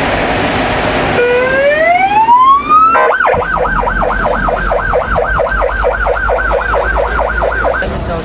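Ambulance's electronic siren starting with one long rising sweep, then switching to a fast up-and-down yelp, about four cycles a second, which cuts off near the end.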